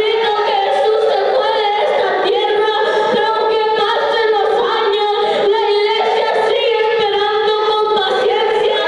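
Several voices singing together as a group.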